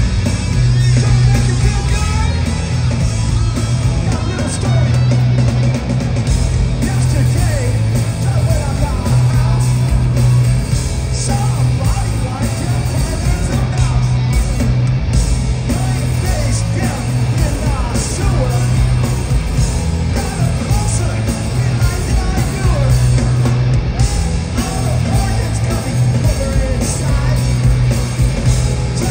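A hard rock or metal band playing live through a stadium PA, recorded from the crowd: distorted electric guitars and a heavy, pulsing bass, with a singer yelling over them.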